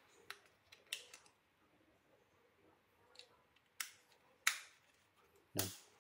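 Scattered sharp plastic clicks and taps from a small plastic remote control being handled and turned over in the hands, the loudest near the end.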